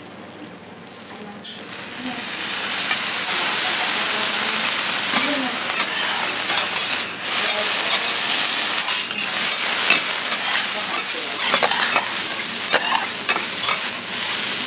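Shredded cabbage, noodles and beef sizzling on a flat iron griddle (teppan) while two metal spatulas chop and toss them, with sharp clicks and scrapes of the spatulas on the plate. The sizzling swells about two seconds in.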